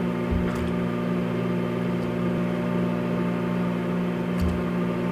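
A steady machine hum, with two soft knocks as aluminium bait injection molds are handled on a wooden workbench: one about half a second in and one near the end.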